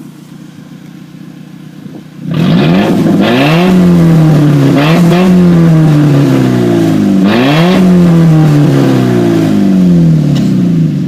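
Nissan Altima engine running with no exhaust fitted: it idles quietly, then about two seconds in it is revved hard and loud. The pitch sweeps up and slowly falls back several times before it drops toward idle near the end.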